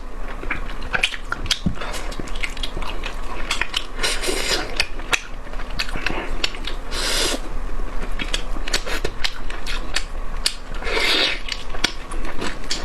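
Close-miked eating: irregular wet clicks and smacks of chewing, with a few short louder noisy swells like slurps or breaths about four, seven and eleven seconds in.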